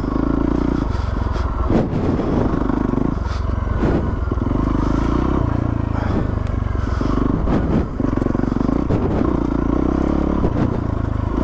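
Yamaha WR450F dirt bike's single-cylinder four-stroke engine running hard, its revs rising and falling several times as the throttle is worked along a rough single track.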